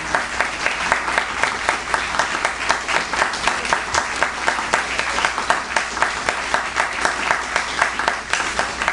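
Audience applauding steadily, with one nearby pair of hands clapping at about four claps a second above the rest.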